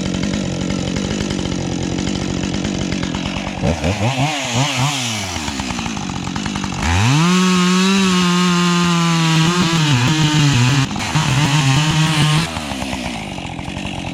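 Two-stroke chainsaw idling, blipped a few times, then opened to full throttle about seven seconds in and cutting through a pine log, its pitch dipping under load before it drops back to idle near the end.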